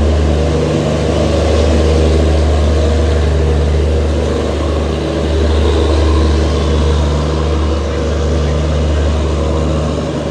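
Passenger train pulling out along a platform, its coaches rolling past with a steady, loud low engine hum.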